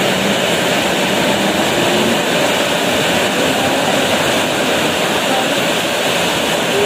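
Heavy rain pouring down in strong wind, a loud steady rush of water.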